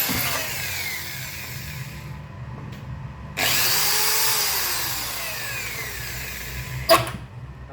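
A power tool running in two bursts, one at the start and another starting sharply about three and a half seconds in, its whine falling in pitch each time as it winds down, over a steady low hum. Near the end comes a single sharp knock, the loudest sound.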